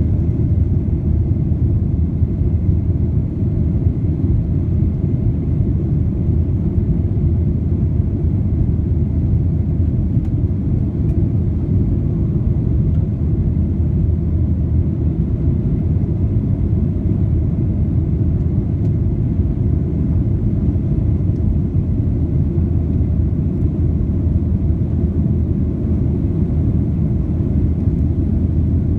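Cabin noise inside a Boeing 737-800: a steady, unbroken low rumble from its CFM56 engines and the airflow around the fuselage.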